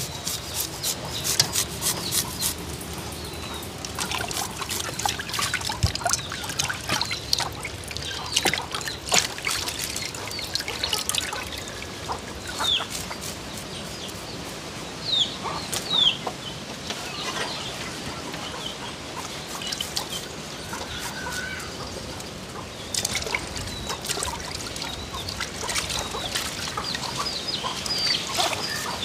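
Garlic being rubbed on a flat metal grater, a run of quick scraping strokes that come thick near the start and again near the end, with water sloshing as raw chicken pieces are washed in a pot. A few short high bird chirps come in the middle.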